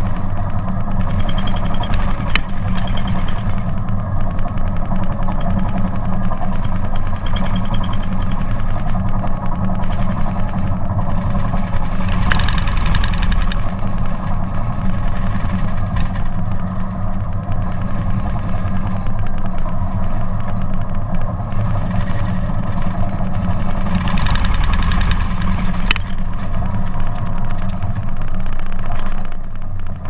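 Caterpillar D10T bulldozer's diesel engine running steadily under load as it pushes coal, heard from on the machine. Two short surges of louder rushing noise come about twelve and twenty-four seconds in, with a few sharp clicks.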